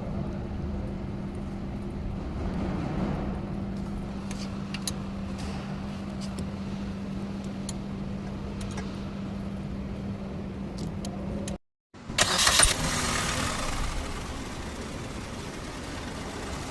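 Car engine running with a steady hum, its water pump newly replaced. About twelve seconds in, after a brief break in the sound, it is much louder for a couple of seconds and then settles back to a steady run.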